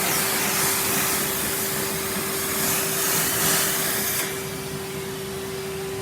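Vacuum cleaner running steadily, a motor whine under a loud rush of suction air, which turns quieter about four seconds in.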